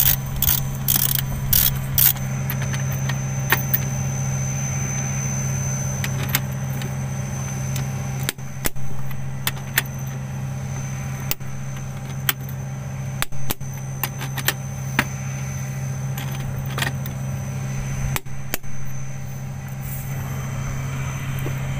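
Ratchet wrench clicking as bolts on a motor grader's circle rotation gear are tightened, a quick run of clicks in the first two seconds, then scattered metal clicks and knocks, over the steady hum of an idling engine.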